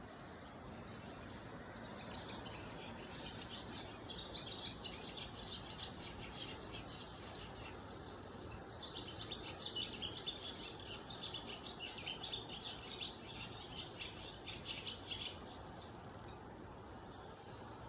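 Small birds chirping in a rapid, busy chatter, in two stretches of about five and six seconds, with a couple of short higher calls between and after, over a steady background hiss.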